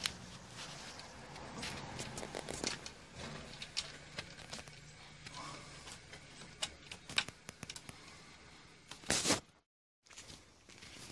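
Scattered small clicks, taps and rustles of hands working at a motorcycle's seat mounting bolts, with a louder rustle near the end followed by a brief dropout.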